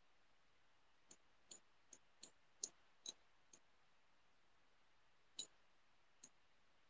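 Faint, irregular computer mouse clicks, about nine in all, spaced unevenly, from a mouse button pressed and released while drawing freehand in a paint program; otherwise near silence.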